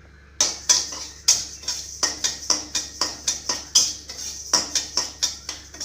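A spatula stirring split moong dal as it roasts in a pan, knocking and scraping against the pan about two to three times a second.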